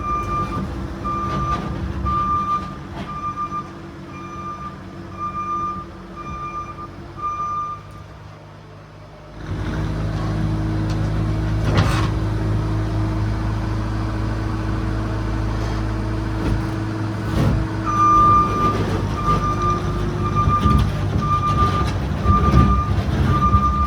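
Case TR310B compact track loader backing up: its reverse alarm beeps at an even pace over the running diesel engine. The beeping stops about a third of the way in, the engine comes up louder, and the beeping starts again about three quarters of the way through.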